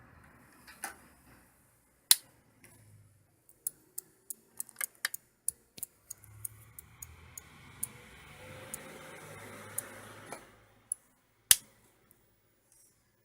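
Small clicks, taps and knocks of a computer power supply's casing, screws and tools being handled during disassembly, with two sharp knocks about 2 s and 11.5 s in. Between about 6 and 10.5 s there is a stretch of rubbing or scraping.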